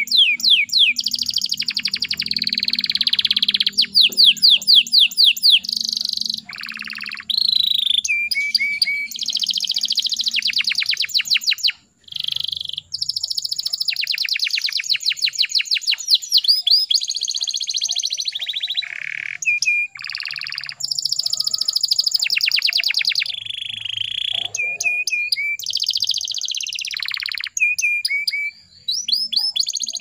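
Domestic canary singing a long, continuous song of fast trills and rolls of rapidly repeated notes, broken by a few short pauses.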